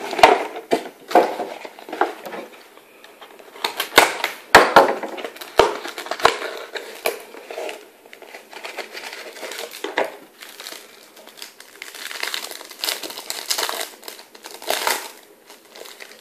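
Clear plastic wrapper on a trading card pack crinkling as it is torn and pulled off, with rustling of the cardboard box and cards. A few sharp knocks in the first half.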